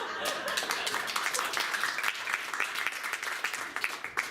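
Audience applauding, a dense patter of many claps.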